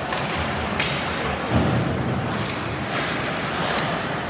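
Ice hockey play on the rink: a sharp click with a short high ring about a second in, then a low thud, over steady arena noise.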